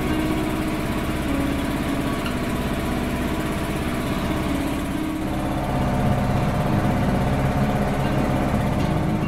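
Boat engine running steadily with a low, even pulse, growing louder a little past halfway.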